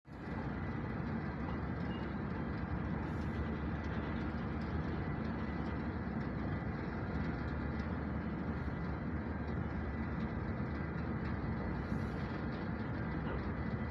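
Steady low rumble of the ro-ro ferry MV Botnia Seaways' engines and propulsion machinery as the ship manoeuvres close by, with a faint thin whine held on top.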